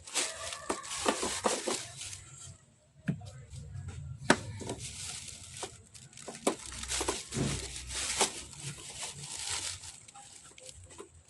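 Irregular clicks, knocks and scraping from hand work on the hose fitting under a car's clutch master cylinder, with a sharp knock about four seconds in.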